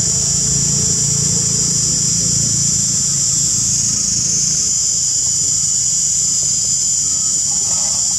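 Steady high-pitched drone of a continuous insect chorus. Underneath, a low engine hum that fades out about halfway through.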